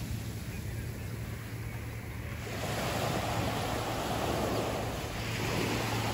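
Small waves breaking and washing up onto a sandy beach, a steady hiss of surf that swells about two and a half seconds in and again near the end, with a low steady hum underneath.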